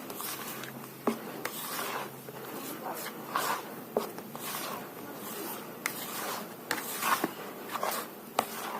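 A spatula scraping and folding thick sponge cake batter around a mixing bowl as melted margarine is stirred in, in a run of repeated swishes with a few sharp clicks against the bowl.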